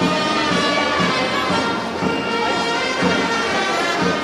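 Loud festive music: reedy wind instruments holding many overlapping tones over a steady beat.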